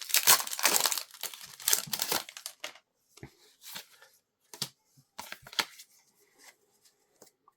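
Pokémon TCG booster pack's foil wrapper crinkling and tearing open for about two seconds, followed by a few shorter, softer crinkles.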